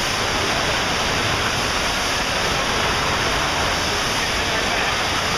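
FlowRider surf simulator: a thick sheet of pumped water rushes steadily up its padded wave surface with a loud, constant, even hiss.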